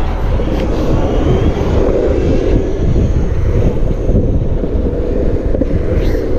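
Steady wind buffeting on an action camera's microphone, with rumble from rolling along the road.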